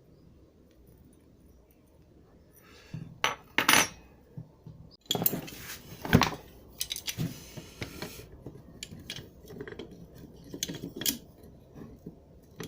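Steel tools and steering-rack parts clinking and clattering against each other during hand work. The first few seconds are quiet, then come sharp clinks, a louder clatter about five to six seconds in, and scattered small clinks after that.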